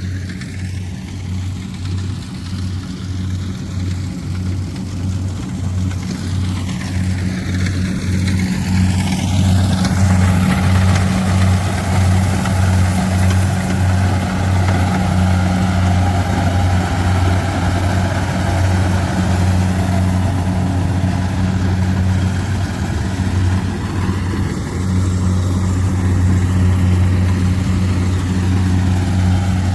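Kubota rice combine harvester's diesel engine running steadily under harvesting load, a low even hum. About ten seconds in a broad mechanical rushing noise joins and the sound grows louder as the machine comes nearer.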